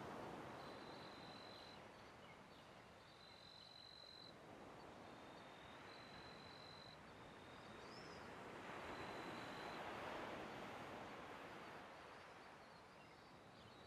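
Faint nature ambience: a soft rushing noise that slowly swells and fades, with a thin, high, even-pitched trill that repeats in stretches of about a second each.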